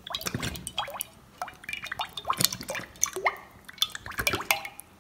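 Cooking oil being poured in a thin stream into an empty nonstick kadai: an irregular run of gurgles, drips and splashes as it pools in the pan, trailing off near the end.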